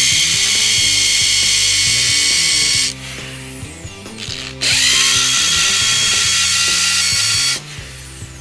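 Corded electric drill running in two bursts of about three seconds each. Each burst starts with a rising whine as the motor spins up, then runs on steadily before stopping.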